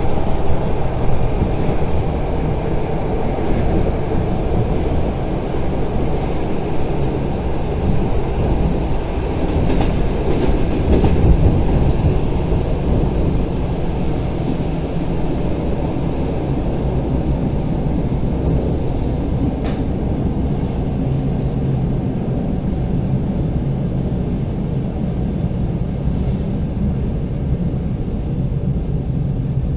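ED9M electric multiple unit running along the line: a steady rumble of wheels and running gear, with one sharp click about twenty seconds in.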